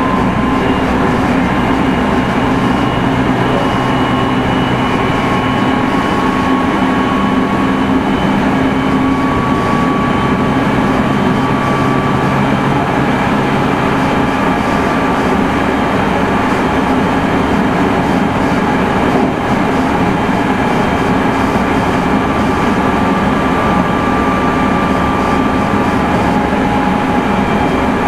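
Meitetsu 3100 series electric train running at speed, heard from inside the car: a steady rumble of wheels on rail with motor and inverter tones that drift slowly in pitch. A low hum fades out about halfway through.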